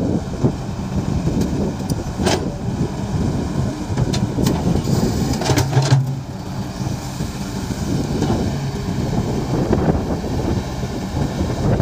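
Excavator diesel engine running under load as the bucket digs and lifts wet mud, with a few sharp knocks and clanks about two, four and six seconds in.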